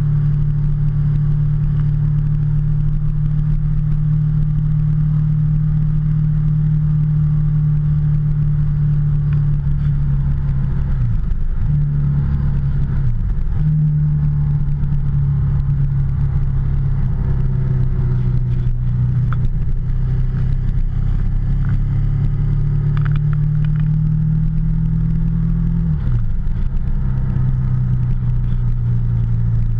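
Motorcycle engine running steadily at cruising speed, heard from the rider's seat. Its pitch dips and recovers twice about a third of the way through, and near the end it drops to a lower, steady pitch.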